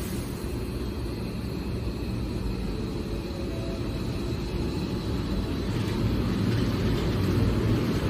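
Nose Electric Railway 7200 series electric train starting to pull out of the station: a steady low rumble that grows louder over the last couple of seconds as the train gets moving.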